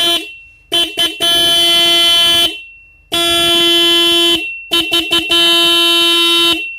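Stebel 12 V single disc horn, the 340 Hz type, sounding in a series of blasts of one steady pitched tone: three long honks of over a second each, with quick short toots between them.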